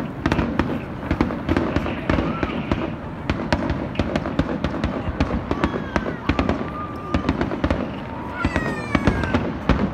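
Fireworks display going off: many sharp bangs and crackles in quick succession, with crowd voices underneath.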